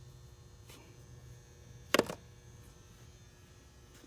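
Steady low electrical hum, with one sharp clack about two seconds in from a hand tool being handled in a toolbox drawer.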